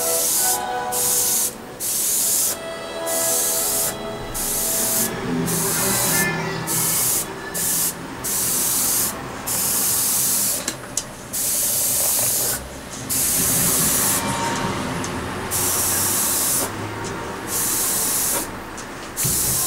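Sata Graph3 airbrush with a 0.2 mm nozzle spraying paint in short hissing bursts, the trigger opened and released about once a second, each burst lasting from half a second to a couple of seconds.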